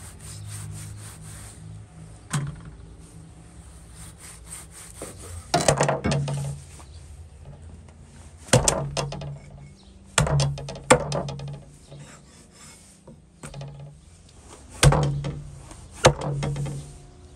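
Beef ribs being butchered on a wooden cutting board: quiet knife slicing and rubbing through meat, broken by about seven sharp, loud cleaver chops through bone into the board, some in quick pairs.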